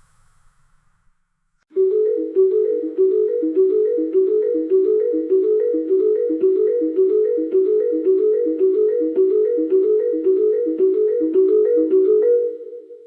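Music: a fast repeating figure of a few notes in a mallet-instrument tone like a marimba. It starts sharply about two seconds in and fades out near the end.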